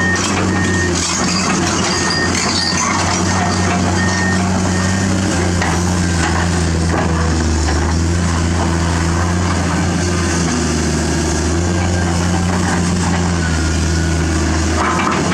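Komatsu PC210-10 excavator's diesel engine running steadily under working load. A warning alarm sounds a string of short beeps during the first five seconds.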